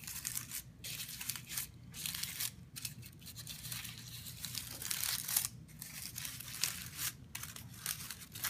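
Paper cupcake liner crinkling and crunching in irregular crackly bursts with short pauses, as it is crimped with a fingernail into flower petals.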